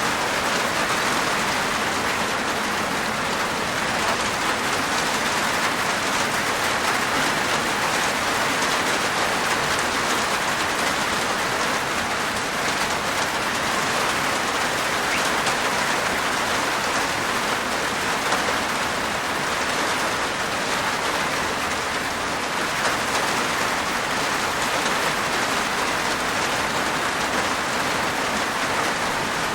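Steady rain falling on a rooftop, a dense even patter of raindrops that holds constant throughout.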